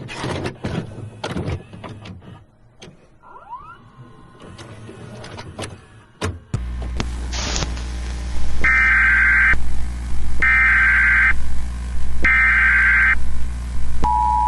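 Crackling static with scattered clicks, then a steady low electrical hum comes in. Over the hum come three one-second bursts of Emergency Alert System SAME header data tones, evenly spaced. Near the end the two-tone EAS attention signal begins, two steady tones close together near 1 kHz.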